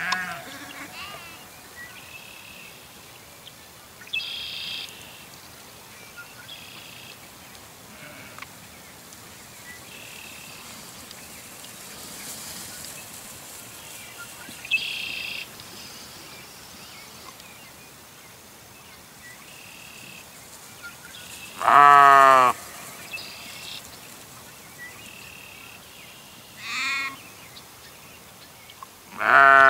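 Sheep bleating: two loud, wavering bleats, one about two-thirds of the way in and one at the very end, with a shorter, higher bleat between them.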